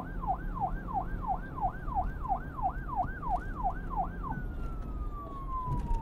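Siren sweeping rapidly up and down, about three times a second, over a low rumble; about four seconds in it changes to a single tone sliding slowly downward.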